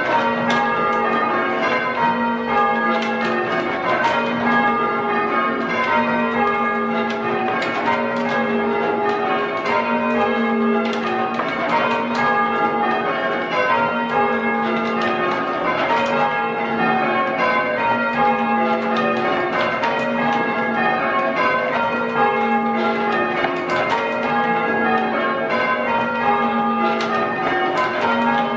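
A ring of six church bells, tenor 9-3-12 cwt in A-flat, rung full circle in English change-ringing style. Each bell strikes in turn in a steady, continuous cycle of strokes.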